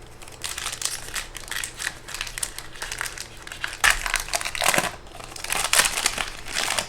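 Foil wrapper of a Panini Score football card pack crinkling and crackling as it is torn open, louder in two stretches in the second half.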